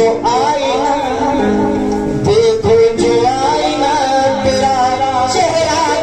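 Qawwali music: a male lead voice sings a wavering, ornamented line over sustained harmonium chords, with hand-drum strokes from dholak and tabla.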